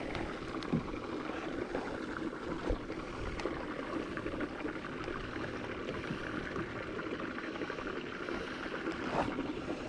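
Steady lapping and trickling of water against a small boat's hull, with small scattered ticks and splashes.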